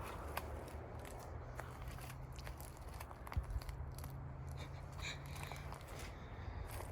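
Hiker's footsteps crunching on a rocky, leaf-littered dirt trail, irregular clicks and crunches with a couple of louder knocks about halfway through, over a steady low rumble.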